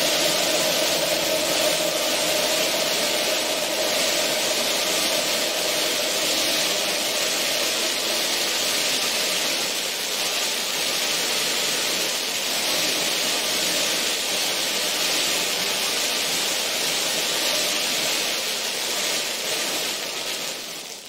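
Dark ambient drone music: a dense, steady hissing wash of noise with a held mid-pitched tone that thins away over the first several seconds. Near the end the whole drone fades out as the track closes.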